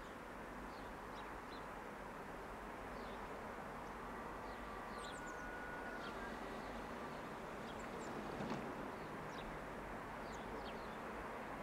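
Small birds chirping in short, scattered calls over a steady background rumble, with one brief thump a little past eight seconds in.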